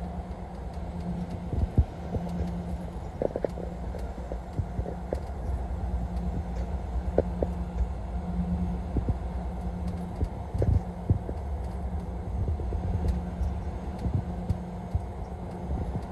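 Road noise inside a vehicle's cabin at highway speed: a steady low rumble of engine and tyres with a hum, and scattered light knocks and clicks.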